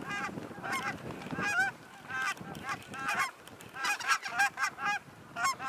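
A flock of geese calling in flight: many short, high-pitched honks and yelps from several birds at once, call after call.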